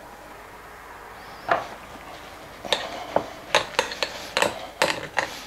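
A spoon stirring a thick sour cream sauce in a glass bowl, clinking against the glass in quick knocks a few times a second from about three seconds in. One single knock comes first, about a second and a half in.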